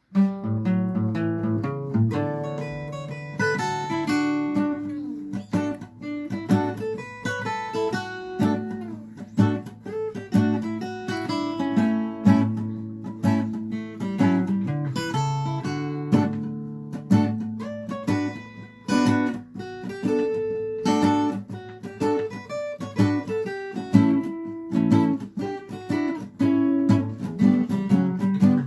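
Acoustic guitar playing a self-composed instrumental ringtone tune: quick plucked melody notes over held bass notes and strummed chords.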